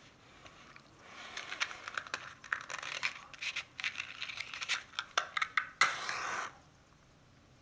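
A run of small scratchy clicks, then a sharp click and a short hiss about six seconds in: a yellow disposable lighter being struck and lit for a cigarette.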